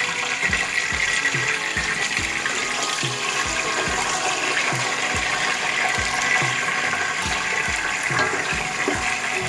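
Potato chunks sizzling in hot soybean oil in a deep pot, a steady hiss, stirred with a wooden spatula. Soft low knocks come about twice a second throughout.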